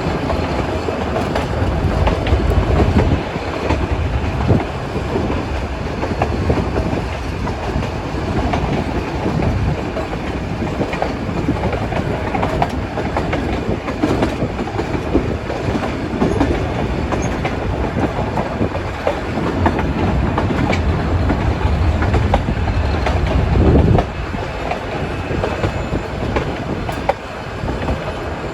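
Nilgiri Mountain Railway metre-gauge toy train running along the track, heard from the ride: a continuous rumble and rattle of the carriages that swells louder a few times.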